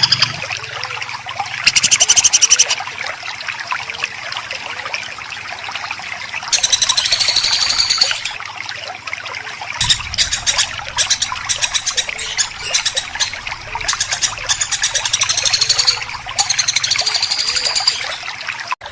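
Songbird giving dense, rapid, harsh burst calls: fast buzzy chatter and rattling clicks, stopping and starting in runs, over a steady trickling hiss.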